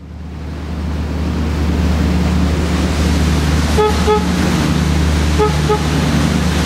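Ski boat's inboard engine running steadily under way, heard from the driver's seat, its low drone fading in over the first second or so. In the middle come two quick pairs of short beeps, about a second and a half apart.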